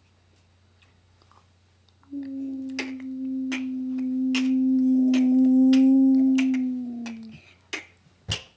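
A long, steady vocal tone, hummed or howled, held for about five seconds and sagging in pitch as it fades, with sharp snap-like clicks about one and a half times a second through it, and two more clicks near the end.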